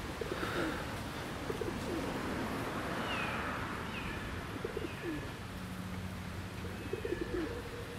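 Pigeons cooing in short low phrases, repeated about four times, with a few faint high chirps of small birds in the middle.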